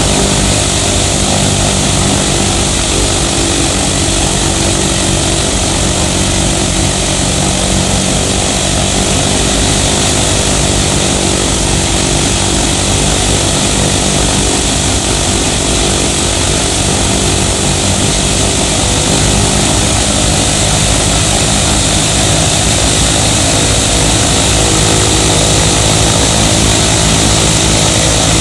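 Ilyushin IL-14's 14-cylinder Shvetsov ASh-82T radial piston engine running steadily, its propeller turning.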